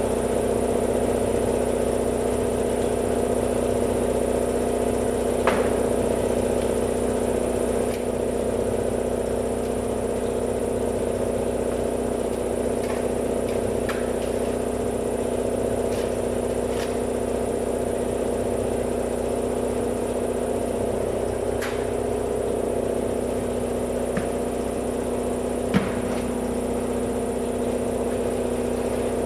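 An air compressor's motor runs steadily with a constant hum, broken by a few light clicks, the sharpest about five seconds in and near the end.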